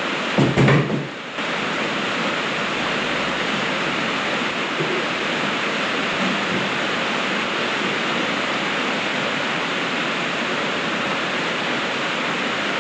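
Heavy rain pouring down, a steady even hiss. About half a second in there is a brief louder knock.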